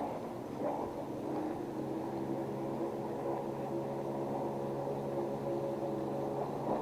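An engine running steadily, a low even hum that settles in about a second and a half in, with a couple of faint knocks near the start.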